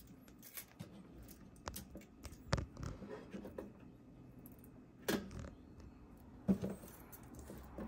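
Scattered clicks and knocks of hard plastic as the clear lid and parts of an Insignia portable ice maker are handled, with a few sharper taps standing out.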